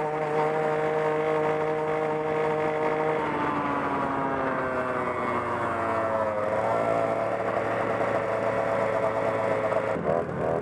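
Go-Ped gas scooter's small two-stroke engine running at a steady speed. Its pitch shifts about three seconds in, eases lower, and settles on a new steady note past halfway.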